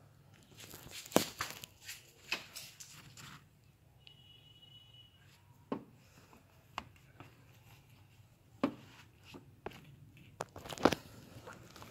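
Hand work removing a car's ABS unit: scattered clicks and knocks of tools and metal parts, with a stretch of rustling in the first few seconds and a brief high squeak about four seconds in.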